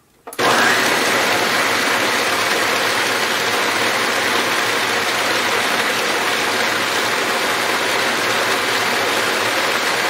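Countertop blender motor switching on just after the start and running steadily, churning pumpkin pulp, seeds and goat milk into a thick puree.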